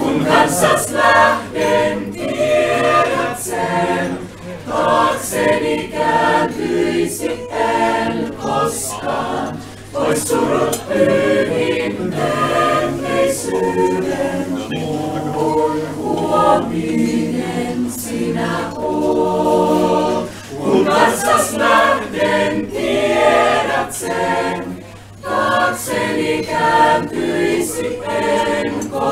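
Small mixed choir singing a cappella, with the phrases flowing continuously and brief dips between them.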